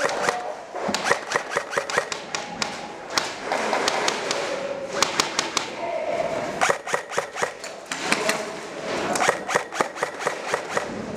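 Airsoft guns firing in repeated short strings of sharp cracking shots, about ten a second, several bursts one after another.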